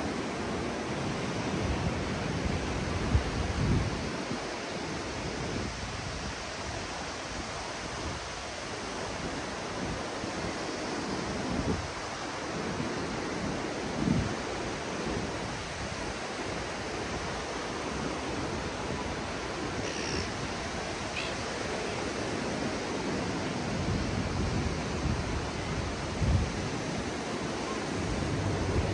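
Steady wash of ocean surf breaking on a beach, with a few low gusts of wind buffeting the microphone.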